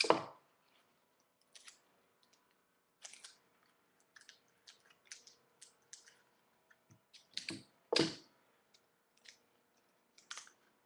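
Sticky tape pulled and torn from a desk dispenser, loudest right at the start and again about eight seconds in, with scattered crinkling and clicking of paper as the tape is wrapped around a rolled-paper handle.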